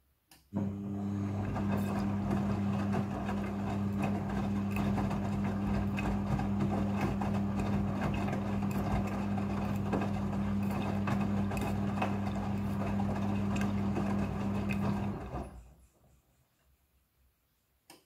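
Front-loading washing machine turning its drum during the rinse: a steady motor hum with wet clothes and water tumbling and slapping inside. It starts about half a second in and winds down and stops about fifteen seconds in.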